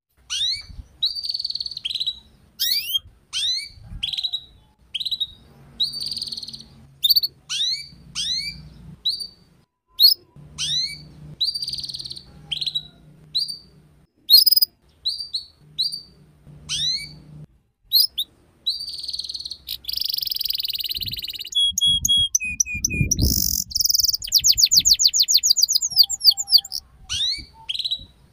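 Canary song: a long run of short, quick rising chirps, then a harsh buzzy note, a couple of clear whistled notes, and a fast trill about two-thirds of the way through before the chirps return. It is ngeriwik-style song of the kind played to young canaries for them to copy.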